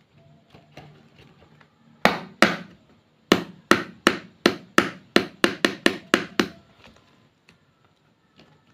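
A run of about a dozen sharp knocks, two or three a second and coming faster toward the end, each with a short ringing tail.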